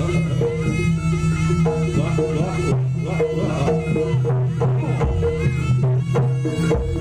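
Live jaranan accompaniment music from a gamelan-style ensemble. A wavering melody line plays over sustained low tones, with a few sharp drum strokes.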